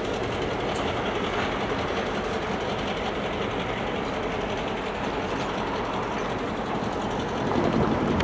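West Chester Railroad train, EMD GP38 7706 hauling ex-Reading MU coaches, running along the track: a steady noise of wheels on the rails, growing a little louder near the end.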